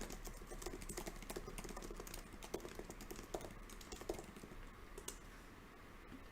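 Typing on a computer keyboard: a quick, irregular run of faint key clicks as a request is typed out, thinning out near the end.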